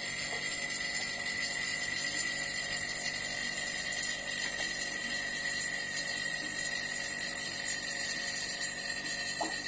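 Refrigeration vacuum pump running steadily with a constant high-pitched whine, pulling a vacuum on the air conditioner to find a leak.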